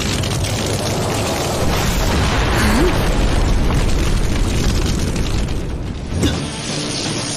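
Fantasy battle sound effects from an animated fight: a continuous deep rumble with booms, over background music.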